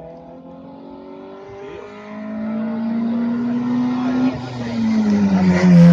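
Rally car engine accelerating hard as it approaches, its note climbing and growing louder. About four seconds in there is a brief dip as it shifts up, then it gets louder still toward the end.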